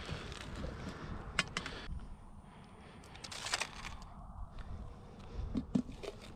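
Handling a plastic minnow bucket and bait on the ice. There are two sharp clicks, a louder scraping rustle about three and a half seconds in, and a few knocks near the end.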